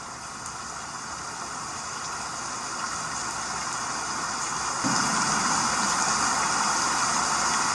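A steady rushing hiss, like rain or running water, that grows steadily louder, with a deeper layer joining about five seconds in.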